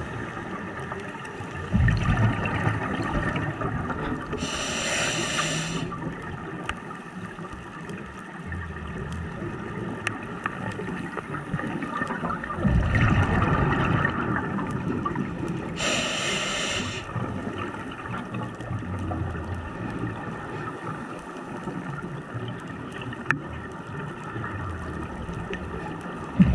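Scuba breathing heard underwater through a diver's regulator: a low rumble of exhaled bubbles, then a short hiss of inhalation a few seconds later, twice over.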